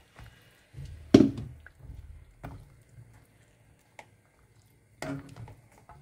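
A stirring utensil knocking against the metal cooking pot: one sharp knock about a second in, then a few lighter taps as the chicken broth is stirred.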